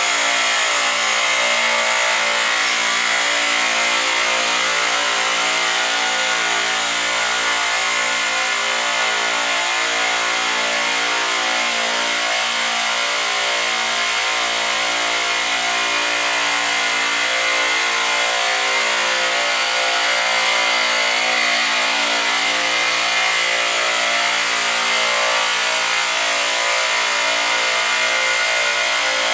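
Refrigeration screw compressor running: a loud, steady machine drone with a constant high whine.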